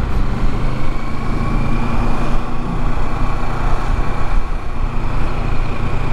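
Motorcycle engine idling with the bike standing still, a steady low rumble.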